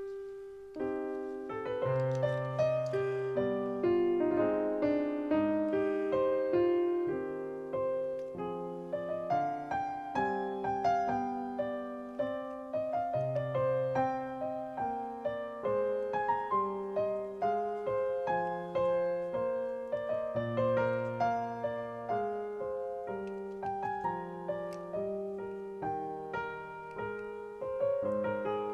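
Solo piano background music: a gentle melody of struck notes over low sustained bass notes.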